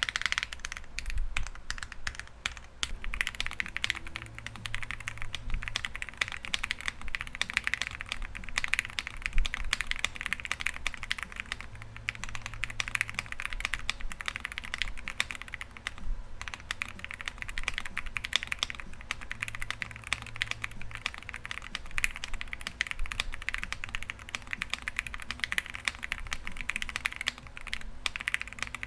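Akko Rosewood mechanical keyboard switches, with nylon housings and nylon stems, being typed on continuously in a gummy O-ring mounted keyboard with ABS keycaps. The keystrokes come in a steady, rapid stream with a deep, soft bottom-out.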